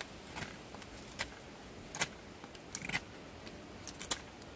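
A SOG Tech Bowie knife's freshly sharpened edge pulled through hard oak, taking shavings: a string of short crisp scrapes about once a second, the sharpest about two seconds in and near the end.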